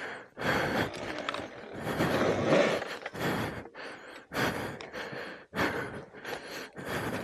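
A man panting hard, with loud breaths in and out about once a second, some drawn out and some short, from heavy exertion.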